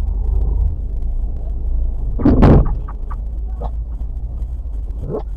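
Low, steady rumble of vehicle engines in street traffic, with a loud sudden noise about two seconds in and a few shorter knocks after it.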